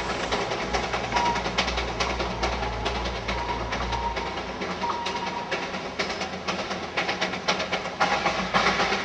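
Darjeeling Himalayan Railway B Class 0-4-0 saddle tank steam locomotive working a train, its exhaust beating in a rapid rhythm.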